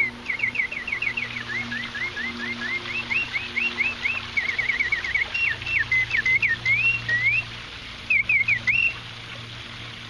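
Antique French singing bird automaton's bellows-driven piston whistle sounding its mechanical birdsong: quick runs of chirps, trills and rising and falling whistled notes. It breaks off briefly about seven and a half seconds in, gives one short phrase, and stops near the end, over a low steady hum.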